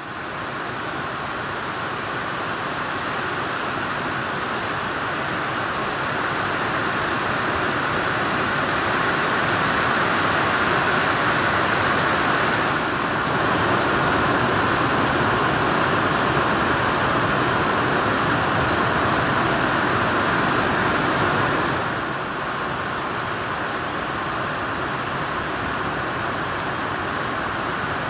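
A steady rushing hiss with no distinct events. It fades in at the start and turns slightly quieter for the last few seconds.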